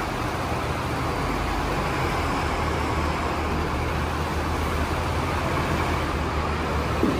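Heavy equipment engines running with a steady low rumble and mechanical noise as the machines are loaded onto a ship.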